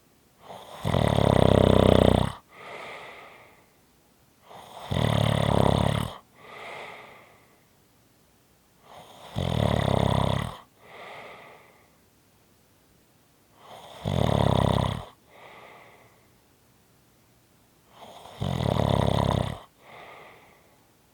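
A person snoring steadily: five loud snores about four and a half seconds apart, each followed by a quieter, shorter breath.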